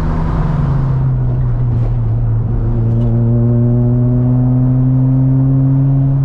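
Mazda FC RX-7's 13B rotary engine under way. Its pitch drops about half a second in, then climbs slowly and steadily as the car pulls.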